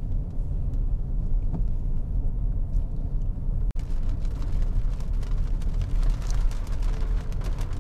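Car driving on a wet road, heard from inside the cabin: a steady low rumble of engine and tyres. About four seconds in the sound changes, with more tyre hiss and scattered light ticks.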